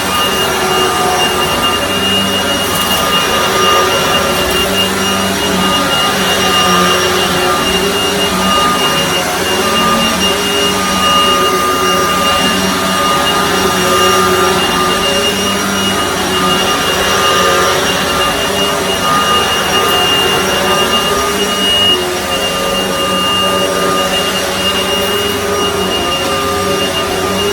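Miele S183 PowerHouse bagged upright vacuum cleaner, a rebranded Panasonic with a 12-amp motor, running steadily with a high, even motor whine over a rush of airflow.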